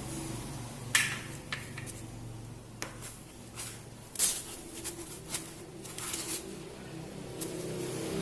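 A series of irregular sharp clicks and knocks, the loudest about a second in and about four seconds in, over a low steady hum.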